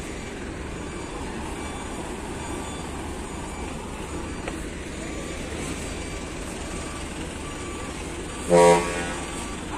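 Steady low rumble of vehicle engines at a ferry loading ramp, cut across about eight and a half seconds in by one short, loud vehicle horn toot.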